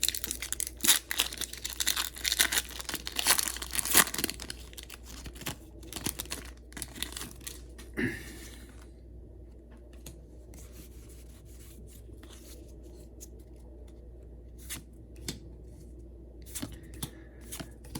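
Foil wrapper of a Pokémon trading-card booster pack being torn open and crinkled, dense crackling for the first half, then quieter rustling and occasional light clicks as the cards are handled.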